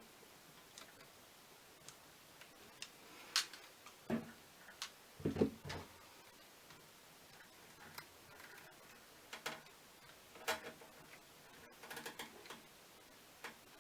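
Scattered small clicks, taps and a few duller knocks from hands working on cables and a plastic zip tie inside a PC case. The knocks are loudest in the first half, and lighter clicks come irregularly after.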